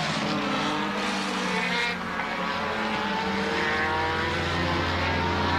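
Formula One car engines running at high revs, several at once, their pitch sliding up and down as they accelerate.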